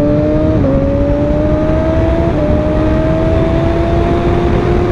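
Honda CBR1000RR inline-four engine pulling under steady acceleration, its pitch climbing slowly and dipping twice as the quick shifter snaps through upshifts without the clutch, with heavy wind rush on the helmet microphone.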